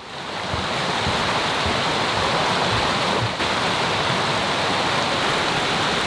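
Small rocky forest creek running over stones, a steady rushing babble close by.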